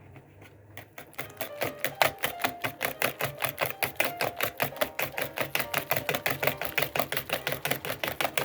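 Wire whisk beating batter in a bowl, clicking against the bowl in a fast, even rhythm of about seven or eight strokes a second, starting softly and getting louder during the first second.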